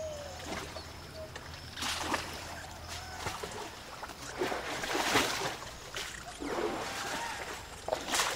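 An elephant's feet splashing and sloshing through mud and water in irregular steps, a few seconds apart.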